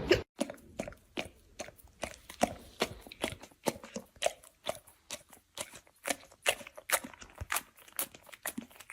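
An animal chewing and crunching something hard, such as dry food or a treat, in a run of short sharp crunches about three or four a second.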